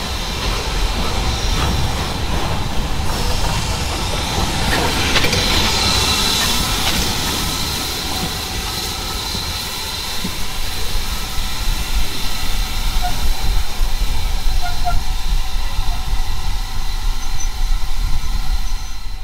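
Steam train of BR Standard Class 4MT 2-6-4 tank engine 80151 and its coaches moving along the platform: a steady hiss of steam over the rumble of wheels on rail. It grows louder about halfway through.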